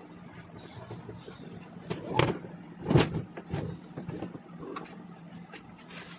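A few knocks and clunks, the loudest about three seconds in, over a steady low hum.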